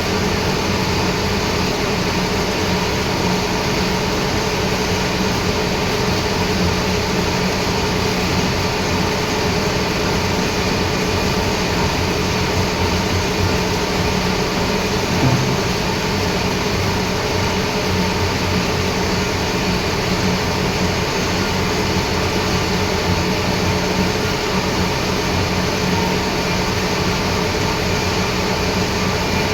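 Lathe running steadily, a continuous mechanical hum with a single short knock about halfway through.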